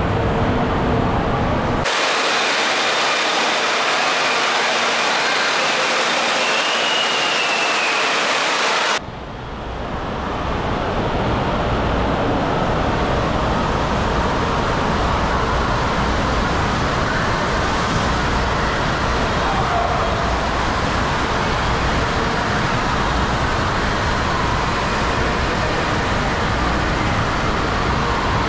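Indoor water park ambience: a steady rush of flowing and splashing water with the echoing din of many voices in a large hall. The sound changes character abruptly twice, about two and nine seconds in.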